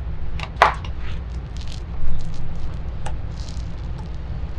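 Small paint roller rolling wet bottom paint onto a fibreglass rudder, with soft sticky clicks and swishes over a steady low hum.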